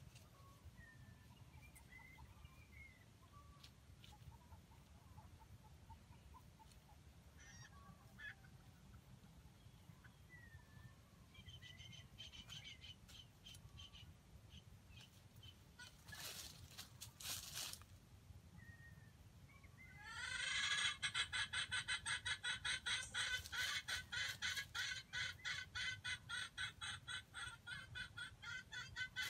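A chicken clucking in a fast, even run of about four clucks a second. It sets in abruptly about two-thirds of the way in and is by far the loudest sound. Before that there are only faint, scattered bird chirps and a few light clicks.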